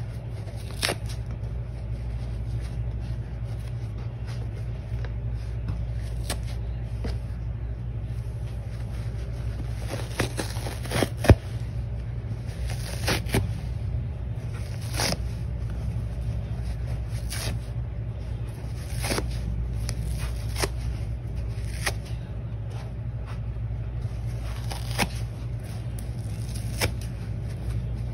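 Dry sponge being torn apart by hand: crackly ripping with sharp snaps every second or two, the loudest about eleven seconds in, over a steady low hum.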